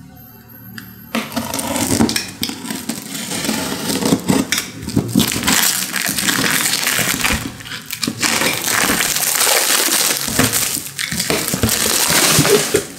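A cardboard box and its packing being torn open and handled: continuous crackling and rustling that starts about a second in.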